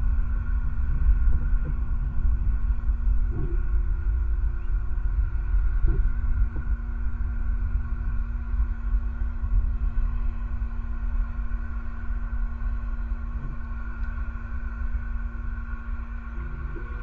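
Steady low outdoor rumble picked up by a wildlife camera's microphone, with a constant electrical hum running under it.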